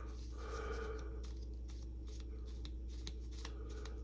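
Faint rubbing and a few light ticks of small metal motor parts being scrubbed and handled, over a steady low hum.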